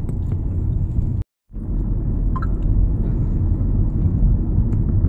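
Steady low rumble of road noise inside a moving car, with a brief drop to dead silence just over a second in.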